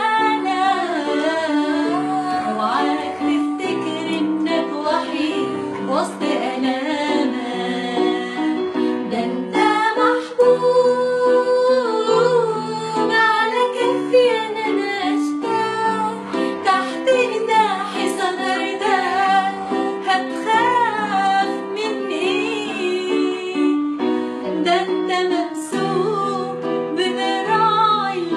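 Music: an Arabic Christian hymn, a sung melody line over steady instrumental accompaniment.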